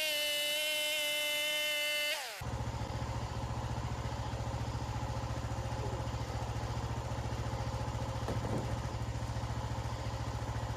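Portable bandsaw sawmill at the end of a cut in pine: a high, steady whine that cuts off suddenly about two seconds in. After that the mill's engine idles with a low, even pulse.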